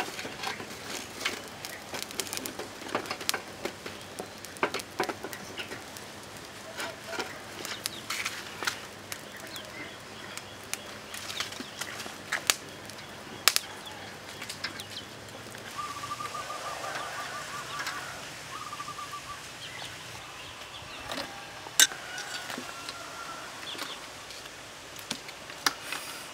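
An open fire crackling under a wire grill, with irregular sharp pops throughout. Birds chirp in the background, with a fast trill of repeated notes about two-thirds of the way through.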